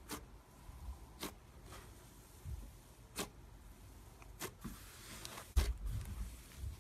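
Fluffy white slime squished and pulled apart by hand: soft squelching with about five sharp crackles or pops spread through it, the loudest about two-thirds of the way in.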